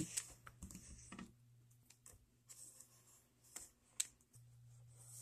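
Faint, scattered light taps and clicks, closer together in the first second or so and sparser after, with a sharper click about four seconds in.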